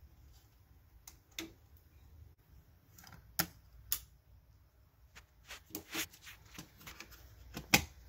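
Scattered sharp plastic-and-metal clicks and taps as the detached car-stereo faceplate is handled against the open head unit's chassis, coming closer together in the last few seconds, the loudest near the end.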